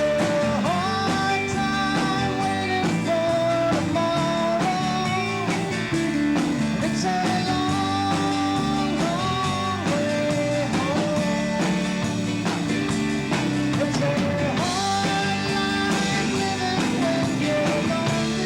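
A rock band playing live, with a lead line of held, bending notes over guitar and bass accompaniment.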